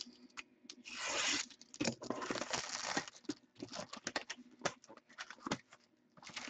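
A blade slitting and tearing the plastic shrink-wrap on a sealed trading-card box, with the wrap crinkling as it is pulled. The loudest tear comes about a second in, followed by a few seconds of scratchy rustling.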